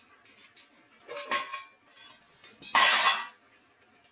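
Metal spoon clinking and scraping against a pot while stirring cooking greens: a clatter just after a second in, then a louder scrape lasting under a second near the three-second mark.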